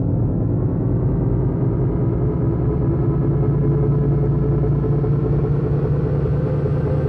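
Science-fiction spaceship engine sound effect: a steady, low rumbling drone with fainter hum above it.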